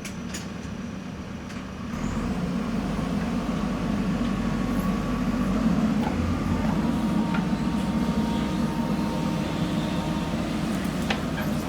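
Diesel engine of a JCB backhoe loader running steadily, getting louder about two seconds in as it works, with a faint high whine over the middle stretch.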